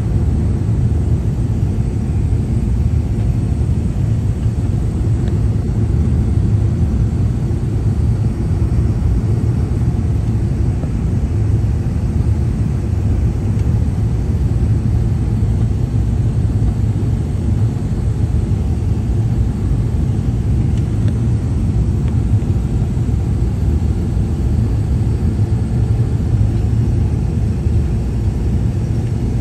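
Steady low rumble of an airliner's engines and airflow, heard from inside the passenger cabin as the plane descends on its landing approach.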